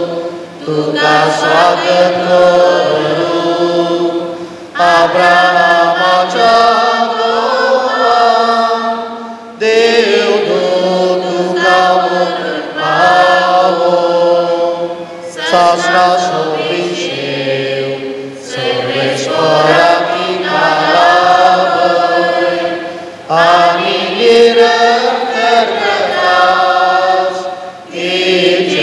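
A slow, chant-like funeral hymn sung by a group of voices in long phrases, with short breaks for breath between them.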